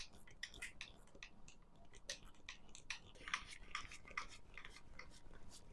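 Faint, quick, irregular clicks and scrapes of small metal parts being handled, several a second.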